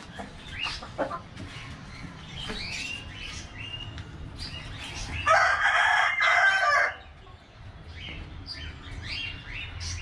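A rooster crows once, one long call of about a second and a half a little past the middle. Short, high bird chirps repeat before and after it.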